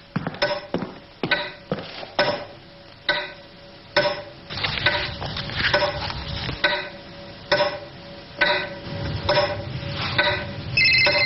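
Wall clock ticking loudly in a quiet room, each tick a sharp click with a short ring, about one a second. Near the end a mobile phone starts ringing.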